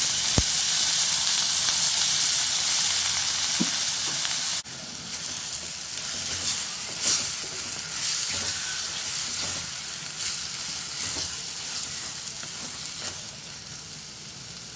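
Water sprinkled into a hot pan of brinjal in coconut masala sizzles loudly, then about four and a half seconds in it drops abruptly to a quieter, steady sizzle with the light scrape and tick of stirring.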